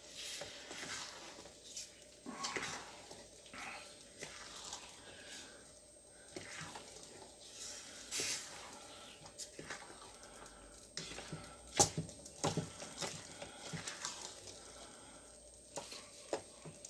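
Wooden spoon stirring simmering pineapple jam in a stainless steel pot, with occasional sharp knocks of the spoon against the pot, the loudest about twelve seconds in.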